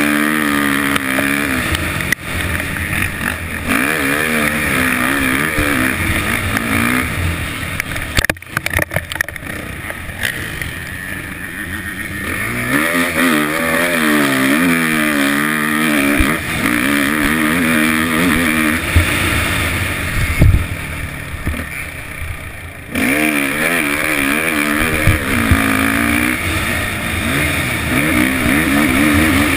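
Suzuki 450 motocross bike's single-cylinder four-stroke engine heard on board, its note climbing and falling again and again as the rider opens and closes the throttle around the track. About eight seconds in there is a quick cluster of knocks. From about 20 seconds the engine runs quieter off the throttle, then picks up sharply about 23 seconds in.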